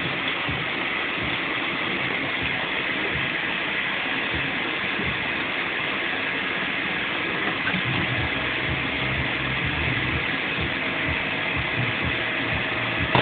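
Vacuum cleaner motor running steadily, a constant rushing hum, with irregular low knocks from about eight seconds in.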